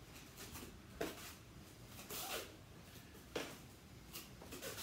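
Faint scuffs, taps and rustles of two people moving through a dagger drill: footwork on the floor and gloved arms meeting, with a few short knocks about a second apart.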